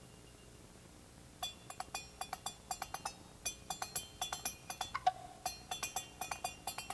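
Drumsticks rapping fast, uneven patterns on the metal cans and plates of a Tin Man costume, each stroke a bright metallic clink with a short ring. The playing starts about a second and a half in.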